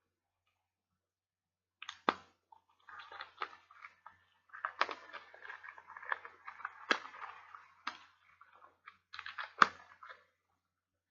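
A DVD box set's plastic packaging being handled and opened, heard through a laptop microphone: crinkling and rustling with several sharp clicks and snaps, starting about two seconds in.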